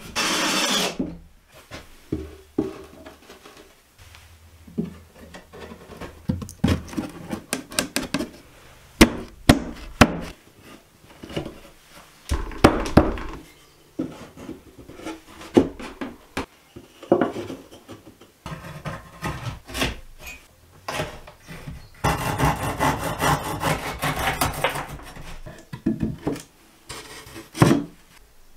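OSB panels and wooden battens being handled and fitted into a shelf unit: scattered wooden knocks, scrapes and rubbing, with a longer stretch of scraping late on.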